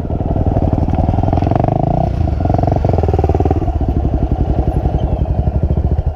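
Dirt bike engine running close to the microphone with a fast, even firing beat, revving up for the first few seconds, then dropping about three and a half seconds in to a slower, lumpier beat as the revs fall.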